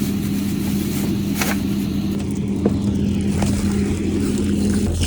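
An engine idling steadily, with a few faint knocks; near the end its hum drops lower.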